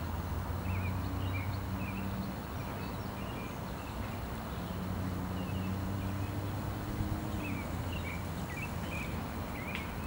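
Steady low hum of distant city traffic, with clusters of short high chirps from small songbirds about a second in and again near the end.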